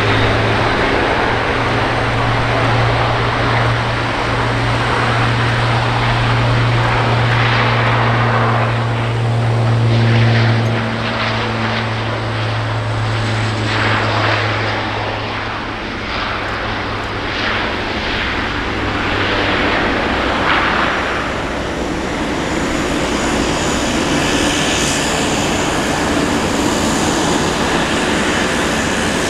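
Airbus A400M Atlas's four turboprops with eight-bladed propellers running at takeoff power through the takeoff and climb-out: a steady low propeller drone over a loud rushing roar. The drone weakens about halfway through as the aircraft climbs away.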